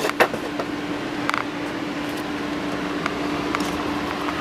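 Steady electrical hum and hiss from a radio test bench, with a few light clicks.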